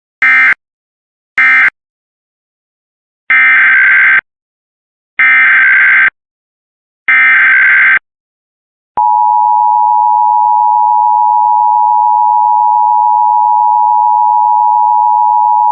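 Emergency Alert System data bursts: the end-of-message bursts closing one alert, then three longer header bursts about two seconds apart starting the next. About nine seconds in, the steady two-tone EAS attention signal begins and holds.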